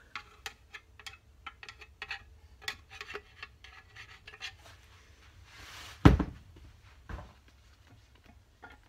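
Light, irregular metal clicks and taps as a hand oil can and the camshaft-bush reamer are handled over an aluminium crankcase while the reamer is being lubricated. A brief hiss comes just before six seconds in. Then comes a single loud knock as something is set down on the workbench, followed by a lighter knock about a second later.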